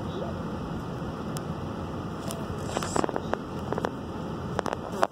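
Car driving slowly, a steady hum of road and engine noise heard from inside the cabin, with a few irregular clicks and crackles about three seconds in and again near the end.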